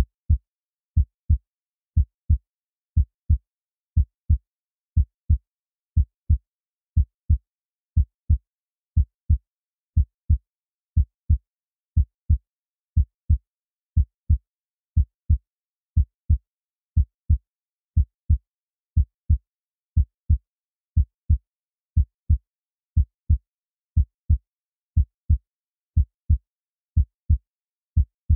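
Heartbeat sound effect: a deep double thump (lub-dub) repeating steadily about once a second.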